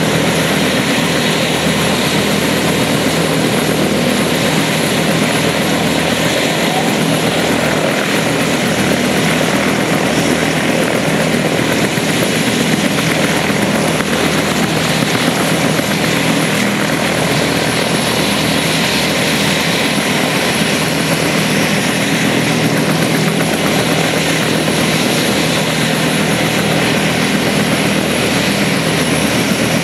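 Bell UH-1H Iroquois (Huey) helicopter running steadily on the ground, its turbine engine and two-bladed main rotor turning with the tail rotor spinning.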